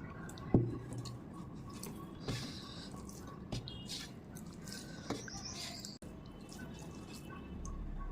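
Close-up eating sounds of rice and chicken curry: wet, squishy chewing and mouth smacks, with scattered small clicks and one sharp knock about half a second in.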